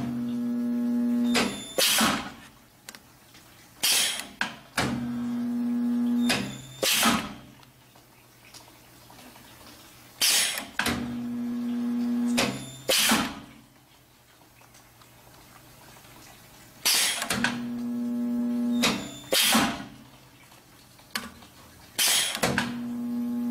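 Miller resistance spot welder making five spot welds in a row on steel strip, one every five to six seconds. Each weld starts with a clack as the copper electrodes close on the metal. A steady electrical hum follows for about a second and a half while the weld is made, then two or three sharp clacks as the electrode arm lets go.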